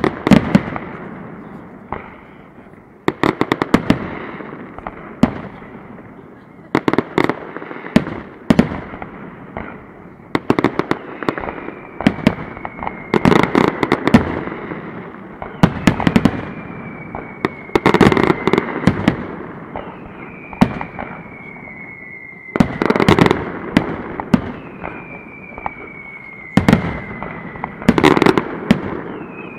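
Fireworks finale: aerial shells bursting in rapid volleys of loud bangs, a cluster every second or two. In the second half a thin whistle keeps falling in pitch under the bangs.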